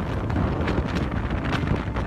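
Strong typhoon wind gusting and buffeting the phone's microphone, a dense, rumbling noise.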